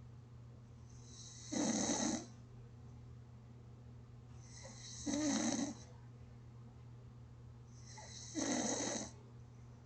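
A person snoring gently, three snores about three and a half seconds apart, each lasting about a second, over a faint steady low hum.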